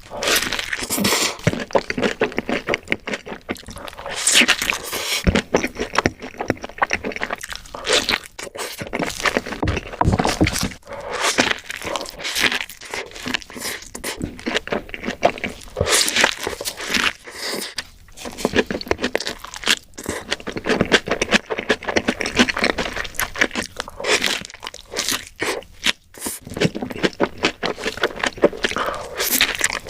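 Close-miked eating sounds: a person chewing and biting crunchy food, a dense run of crisp, irregular crunches and crackles.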